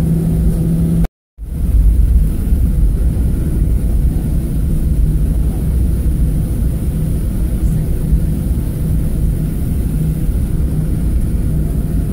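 Cabin noise of a Boeing 737-700 taxiing, its CFM56-7B engines running at low power: a steady low rumble with a faint hum. The sound drops out completely for a moment about a second in.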